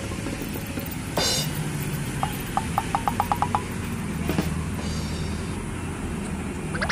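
Model train (a CC206 locomotive hauling Argo Sindoro passenger coaches) running along an outdoor track, with a low steady rumble. About two seconds in there is a quick run of light clicks, like wheels over a rail joint, and a couple of single sharp clicks around it.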